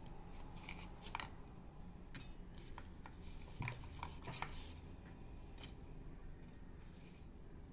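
Faint, scattered clicks and light taps as garlic cloves and small onions are dropped by hand onto soaked lentils in a steel pressure cooker.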